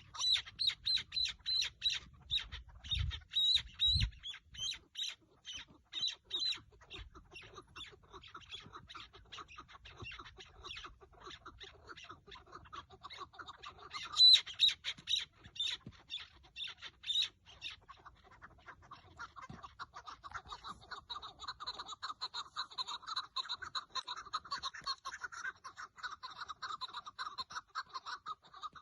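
Chukar partridges calling in rapid runs of short, sharp repeated notes: a loud run at the start, another about halfway, and a denser, continuous chattering run through the last third. Two low thumps come a few seconds in.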